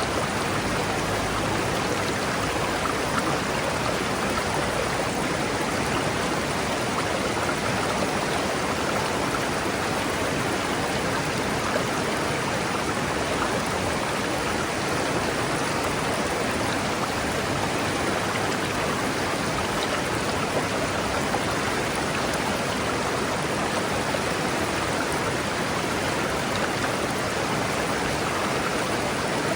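A forest river rushing steadily over rocks, an even, unbroken roar of flowing water.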